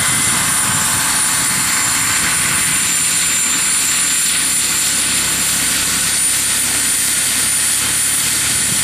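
Turbine-powered large-scale model Mil Mi-24D Hind helicopter hovering low and setting down. Its turbine gives a steady high whine over the rotor's chop.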